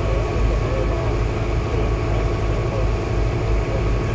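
A boat's engine running steadily under way, a constant low drone.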